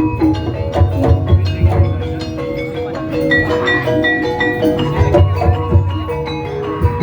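Javanese gamelan music of the kind that accompanies ebeg dance: mallet-struck tuned percussion playing a running melody of short notes over low drum strokes.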